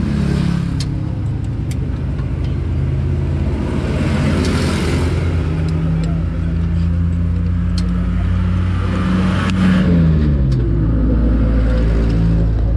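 Mitsubishi Fuso truck's diesel engine running steadily, its speed rising briefly and then dropping near ten seconds in. A few light clicks sound over it.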